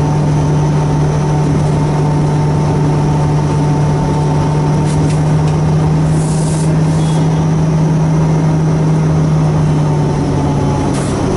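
ALCO WDG-3A diesel locomotive's turbocharged V16 engine chugging steadily under load, a deep even drone that eases slightly near the end.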